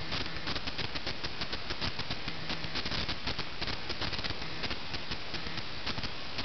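Dense, continuous rustling and crackling of wood-shaving bedding as a hamster moves and burrows through it.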